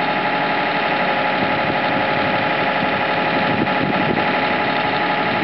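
Skid loader engine idling steadily, with a few faint scrapes of a shovel in a rocky hole about four seconds in.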